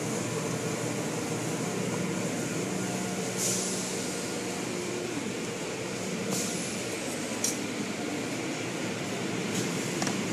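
Automatic car wash tunnel running: a steady wash of spinning cloth brushes, spraying water and machinery hum, with a few short hissing spray bursts.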